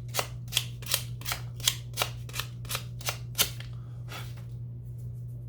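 Sandpaper rubbed back and forth over the edge of an arrow insert, knocking off the teeth marks left by pliers: short, even scratching strokes about three a second, fading out after about three and a half seconds. A steady low hum runs underneath.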